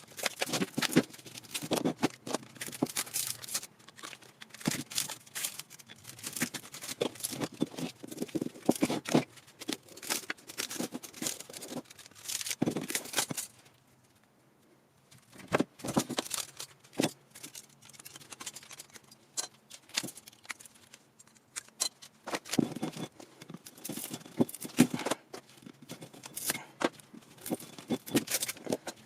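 Irregular clicking, scraping and rattling of hands-on work with small metal parts, stopping for about two seconds a little before the middle.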